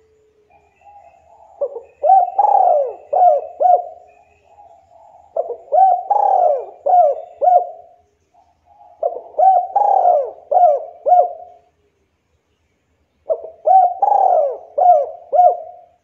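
Local Javan spotted dove (derkuku) cooing: four phrases of several coo notes each, one starting about every four seconds.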